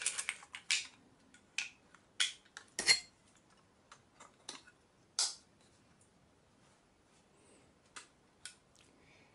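Small clicks and light metallic clinks of a 35 mm film cartridge and the Kodak Retina IIa's metal body being handled as the film is fitted into the open camera. Most come as a cluster in the first three seconds, with the sharpest click just before the three-second mark, then a few scattered clicks.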